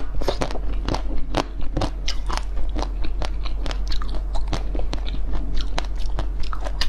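Close-up crunching and chewing of hard frozen ice: rapid, irregular sharp crackles as it is bitten and broken between the teeth.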